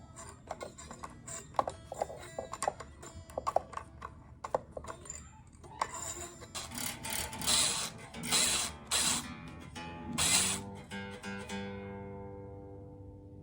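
An electric guitar being tuned and intonated: a run of small mechanical clicks and ticks from turning the tuners and adjusting the bridge, then a few scratchy strums, the last one ringing out as a chord that slowly fades.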